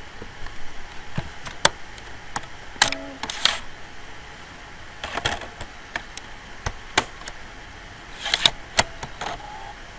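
Irregular sharp plastic clicks and knocks as a blank DVD is loaded into a computer's slim DVD drive tray.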